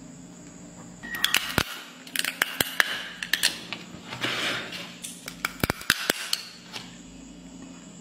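Irregular sharp plastic cracks and crunching of a plastic ballpoint pen being bitten and chewed, in a few short bouts.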